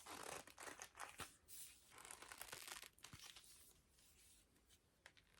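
Faint tearing and crinkling of plastic packaging being worked open by hand, a run of rustles that dies away over the last couple of seconds.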